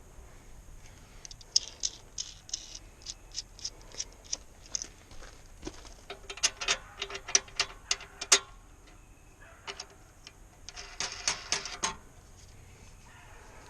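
Runs of sharp mechanical clicks and rattles from hand assembly of a pressure washer. First comes a steady series of about three clicks a second, then a faster, louder run, then a short burst near the end.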